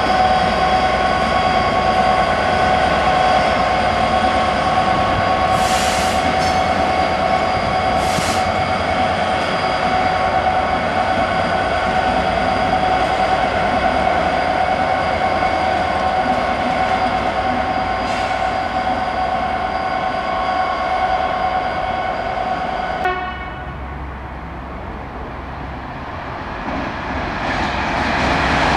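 Class 66 diesel locomotive's two-stroke V12 engine running, with a steady whine and two short hisses about 6 and 8 seconds in. The engine sound cuts off suddenly about 23 seconds in, and the rumble of another approaching train grows over the last few seconds.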